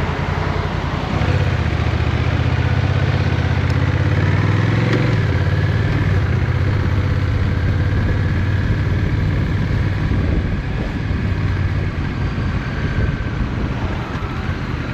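Honda Rebel motorcycle engine running under way, its note rising about four seconds in and then holding steady.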